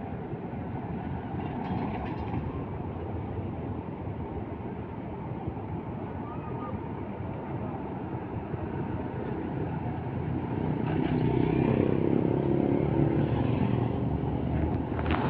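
Large bus engine running as the bus pulls toward and past, the rumble swelling loudest over the last few seconds, with a brief hiss near the end.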